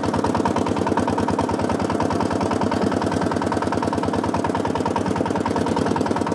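Small engine of a homemade tractor running steadily under way, with an even beat of about ten pulses a second.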